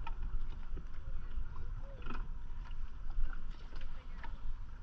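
Small boat moving slowly on open water: water washing against the hull over a low, uneven rumble, with scattered faint splashes.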